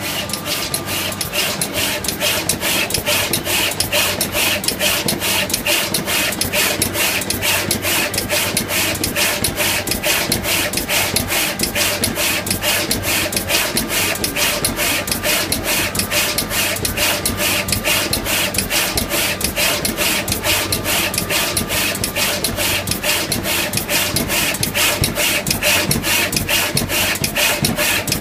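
High-speed multi-nozzle LED pick-and-place machine running in production, its placement heads clattering in a fast, even rhythm of clicks several times a second over a steady machine hum as it places LEDs on strip boards for tube lights.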